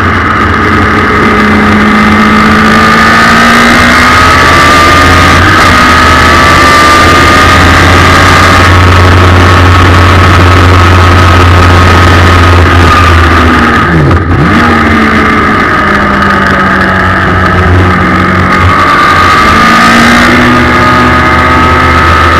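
Suzuki Hayabusa four-cylinder motorcycle engine with an Akrapovic exhaust, run hard in a race car on track, its pitch slowly rising and falling through the corners. The note dips sharply for a moment about fourteen seconds in.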